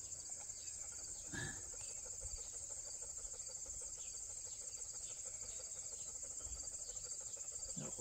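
Insects chirping in a steady, fast-pulsing high trill, with one brief faint sound about a second and a half in.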